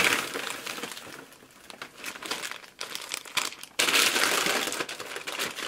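A fast-food paper bag and a burger's paper wrapper being opened, crinkling and rustling: loudest at the start and again about four seconds in, with quieter handling between.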